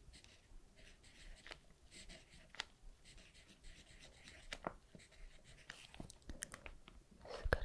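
Ballpoint pen writing on a paper page, heard close up as soft scratching with small scattered clicks and taps. The writing stops, and a short louder sound follows near the end.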